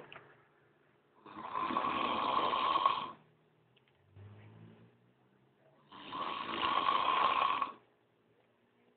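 A man snoring in his sleep: two long snores about four and a half seconds apart, each lasting about two seconds.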